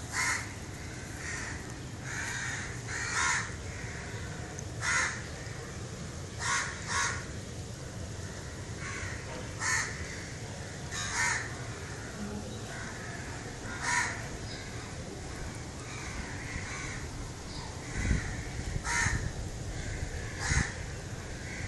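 Crows cawing, about a dozen single caws spaced a second or two apart, over a steady low background noise.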